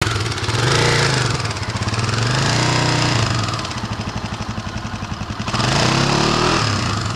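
Kawasaki dual-sport motorcycle engine revving up twice, settling into a throbbing idle for a couple of seconds, then revving up again near the end.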